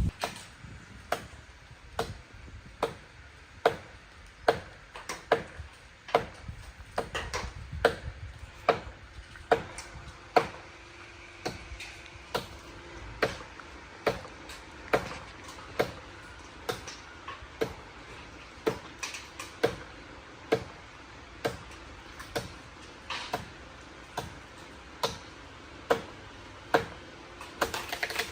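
Steady chopping blows into wood, a little more than one a second, each a sharp knock with a short ring.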